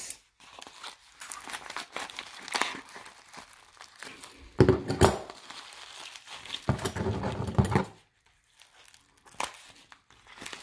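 Tissue paper crinkling and rustling in irregular bursts as a package is unwrapped by hand, with a few louder bursts of handling about halfway through.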